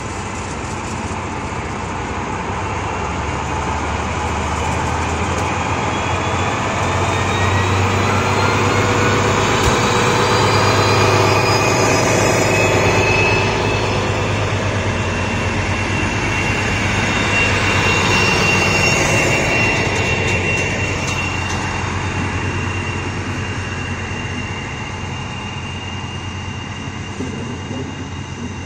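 Two DB class 218 diesel-hydraulic locomotives with MTU 12V 956 TB 11 V12 engines pulling away under power with an Intercity train. The engines run loud with a whistling whine that rises in pitch over the first dozen seconds and then holds steady. The sound peaks about halfway, then fades as the passenger coaches roll past.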